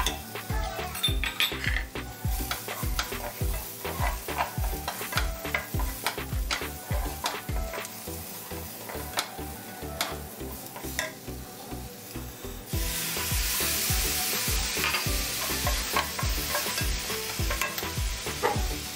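Sliced onions sizzling in oil in a ridged grill pan while a wooden spatula stirs and scrapes them, with frequent clicks of the spatula against the pan. The sizzle grows louder about two-thirds of the way through.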